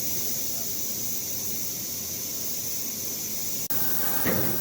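A steady hiss, broken by a split-second dropout late on, followed by a short burst of noise near the end.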